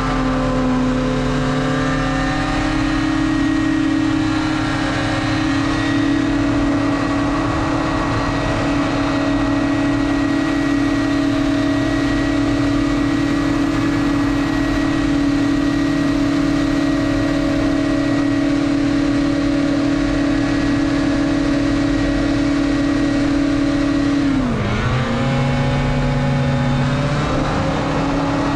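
Racing hovercraft's engine and fan running hard, heard from on board. The engine note climbs over the first couple of seconds and then holds high and steady with a constant rush. Near the end the revs drop sharply, then pick up again.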